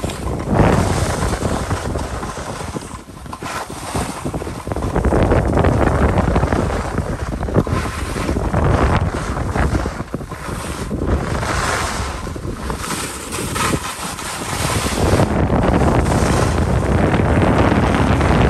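Wind buffeting the microphone of a camera carried by a downhill skier, over the rushing scrape of skis on packed, groomed snow. The noise swells and dips every few seconds as the skier turns.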